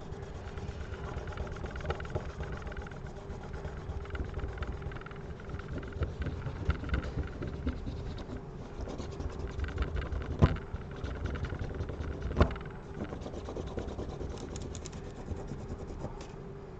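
Rubbing and wiping on a phone's plastic frame while it is cleaned with alcohol, a steady scrubbing noise with a low rumble, with two sharp knocks about ten and twelve seconds in.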